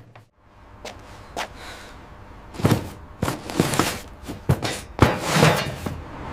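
A run of knocks and thuds with short bursts of rustling, starting about two and a half seconds in.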